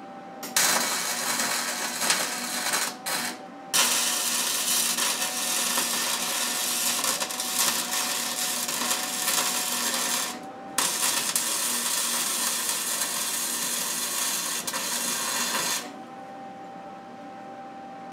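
Electric arc welding: a steady crackling sizzle of the welding arc as a reinforcement plate is welded onto the subframe's motor-mount bracket. It pauses briefly about three seconds in and again around ten seconds, and stops about sixteen seconds in.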